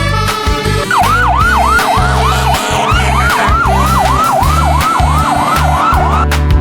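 Emergency-vehicle siren wailing in quick falling sweeps, about three a second, starting about a second in and cutting off near the end, over background music with a steady bass beat.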